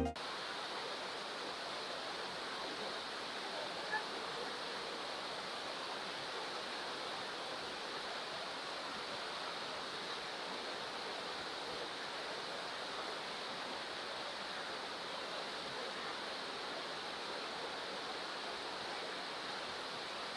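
Steady rush of falling water from the Pillone waterfall.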